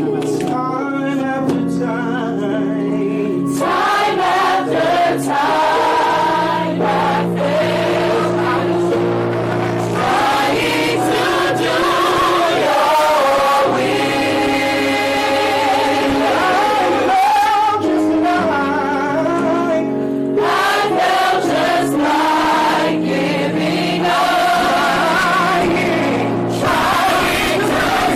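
Gospel choir singing with instrumental backing, held chords over steady bass notes. The sound grows fuller and brighter about three and a half seconds in.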